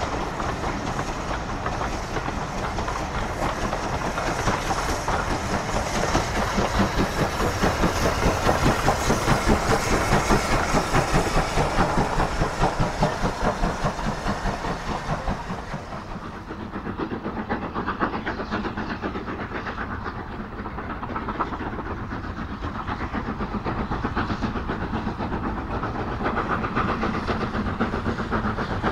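USATC S160 2-8-0 steam locomotives working trains. First the train goes past with its coaches clattering over the rail joints to a steady rhythm of exhaust beats. About halfway through there is a cut to an S160 approaching under steam, and its chuffing grows louder near the end.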